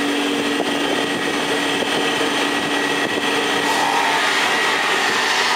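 Electric motor of a workshop machine running steadily, a continuous hum and whine, with its lower hum fading about three seconds in.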